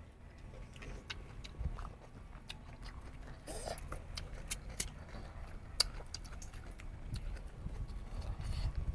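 A person chewing and biting cooked goat head meat, with scattered sharp mouth clicks and a brief louder noise about three and a half seconds in.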